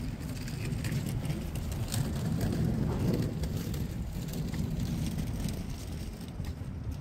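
Low, steady rumble of wind buffeting the microphone, swelling slightly a few seconds in, with a few faint clicks.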